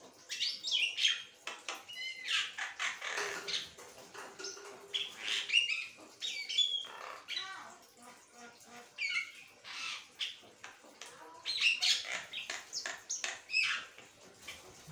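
Javan myna (jalak kebo) singing a long, varied run of chirps, squawks and whistles, broken only by short pauses.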